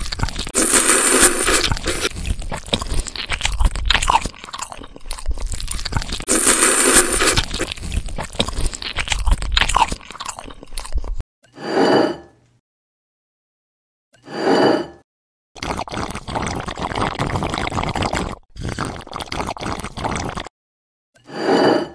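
Close-up mukbang eating sounds of noodles: wet chewing and slurping for about eleven seconds, louder twice, about a second in and about seven seconds in. Then come a few short separate mouth sounds and more eating noise with brief silences between.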